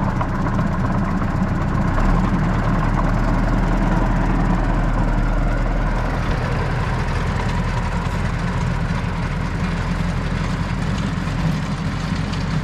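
Tractor engine running steadily while spreading grass seed, with a deep low hum that grows stronger about two seconds in.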